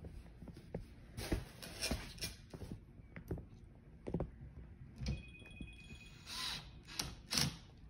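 Cordless drill-driver driving screws into wooden slats in short spurts, with a motor whine about five seconds in. Knocks and clatter of the wood and bits come in between.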